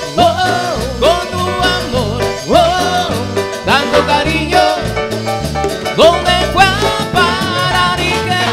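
Live band playing a Latin dance song in an instrumental passage between sung lines: a lead part with notes that slide up into held tones over a steady beat and a stepping bass line.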